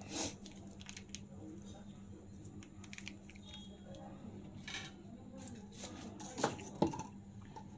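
Quiet room tone with a steady low hum and a few soft clicks and knocks, the last two close together near the end.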